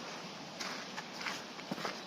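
Footsteps of a walker on a track: several irregular steps over a steady background hiss.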